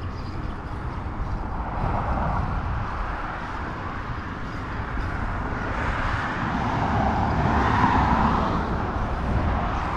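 A car passing on the highway, its tyre and engine noise swelling to a peak about eight seconds in and then easing off, over a steady low rumble of wind on a moving bicycle rider's microphone.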